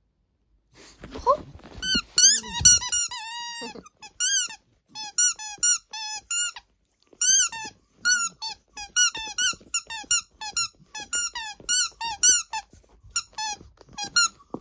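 Rubber squeaky ball squeaking over and over as a small dog bites and chews it, short high squeaks about two a second, starting about a second in.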